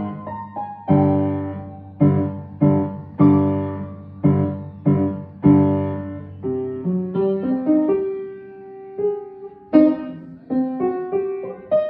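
Solo piano played without the damper pedal: loud chords struck about once or twice a second for the first six seconds, then a lighter melody of single notes.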